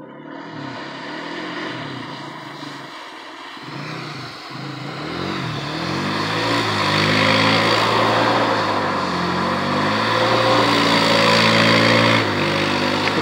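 Polaris Sportsman 570 ATV's single-cylinder engine revving up and down as the quad spins circles on ice. About six seconds in it grows louder and holds at high revs, with a strong hiss of the tyres sliding on the ice, then eases off near the end.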